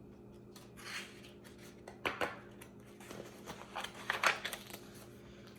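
Paper rustling as a picture book's pages are handled and turned: several short, soft swishes.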